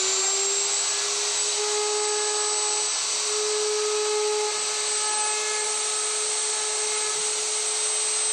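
Electric plunge router running at full speed with a steady high-pitched whine while it is guided around a template window, routing one segment of a design pattern into the wood.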